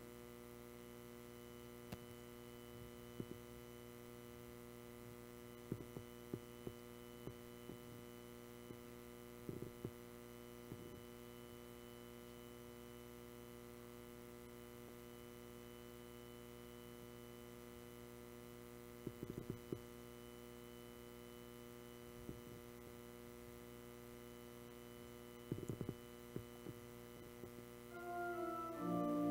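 Steady electrical mains hum with a low buzz, broken by a few faint, scattered knocks and clicks. Near the end a church organ begins the introduction to a hymn.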